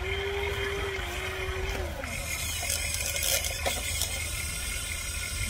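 Electric motors and gears of a Huina 1593 RC excavator running as the arm moves: a steady whine that drops in pitch and stops about two seconds in, followed by a few mechanical clicks and rattles.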